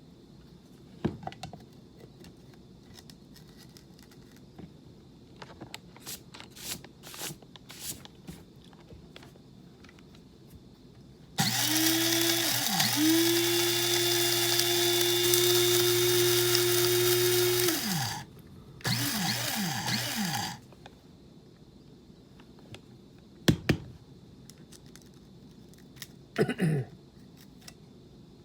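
Kaffè electric blade coffee grinder running on coffee beans for about six seconds, its motor pitch dipping once near the start and recovering, then pulsed again for about two seconds and winding down, to break up larger pieces left in the grounds. A few clicks and knocks of handling the grinder come before and after.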